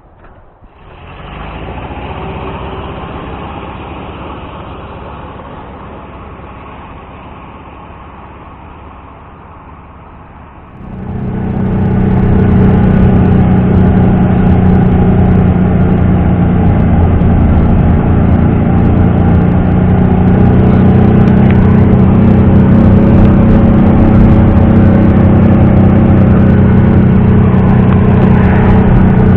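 ZAZ-968M Zaporozhets' air-cooled V4 engine running. It is fairly quiet for the first ten seconds, then about eleven seconds in it turns much louder and holds a steady note.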